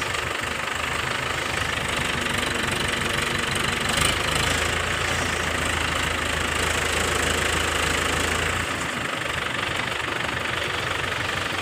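Heavy machinery's diesel engine running steadily under load while a mini excavator is lifted and lowered onto a tractor trolley; a deeper hum comes in about four seconds in and drops away near nine seconds.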